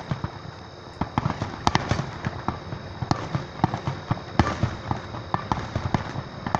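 A fireworks display going off in a rapid, irregular string of bangs and crackles, several a second.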